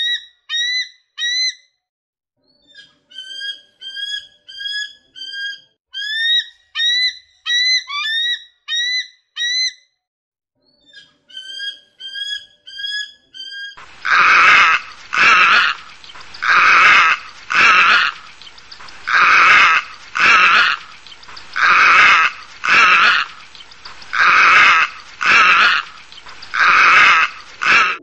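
Maillard's (Réunion) harrier giving short, thin whistled calls in bursts of about two a second. About halfway through, this gives way to a pied harrier's loud, harsh calls, repeated evenly a little more often than once a second.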